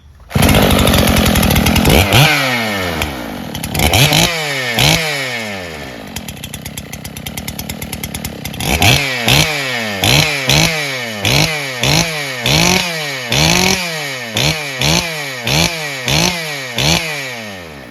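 Makita DSC-6421 two-stroke chainsaw, rebuilt with a Dolmar PS-7900 big-bore top end, starting up at once and running. It revs up and down a few times, settles to a lower idle for a few seconds, then gets a long run of quick throttle blips, about one and a half a second.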